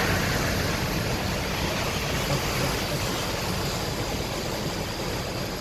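Very heavy rain: a steady rushing hiss with a low rumble beneath it, growing slowly quieter.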